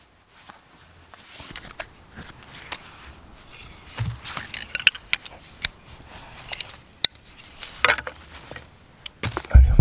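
Camping gear being handled: cord and fabric rustling, then a hatchet and a folding saw set down on dry leaves and grass with scattered metal clinks, a dull thump about four seconds in and a heavier thump near the end.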